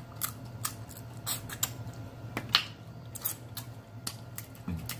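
Close-up mouth sounds of eating pig's feet: irregular sharp smacks, sucking and chewing clicks as meat is picked off the bones, over a steady low hum.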